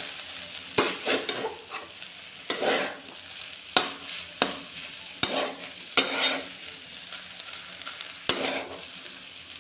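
Spatula stirring and scraping rice in a kadhai as it is stir-fried, with a low hiss of frying underneath. The spatula knocks sharply against the pan about eight times at irregular intervals.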